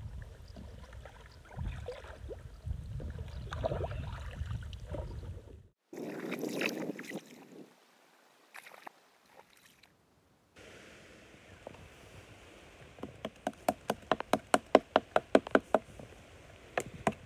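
Low wind rumble and light water sounds from a kayak on a pond. Then a fixed-blade knife chops into a young maple stem in a quick run of sharp, even knocks, about four strokes a second.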